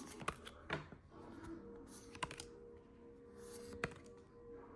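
Pokémon trading cards being handled and flipped through, giving a few sharp, quiet clicks and snaps as the cards slide off one another.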